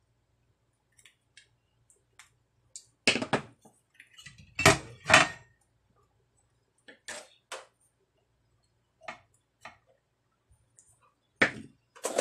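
Scattered metallic clinks and knocks as an amplifier circuit board with its metal heatsink is handled and shifted in the steel chassis, the loudest knocks about three and five seconds in.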